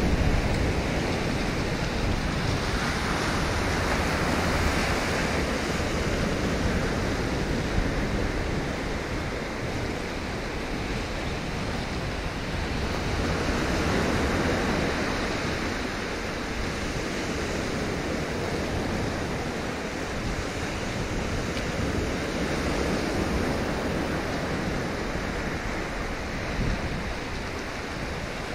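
Surf washing on the shore, rising and falling in slow swells about every ten seconds, with wind rumbling on the microphone.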